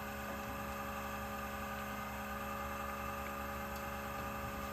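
Electric fuel pump running with a steady hum, making noise but not pumping any fuel, so no fuel pressure builds.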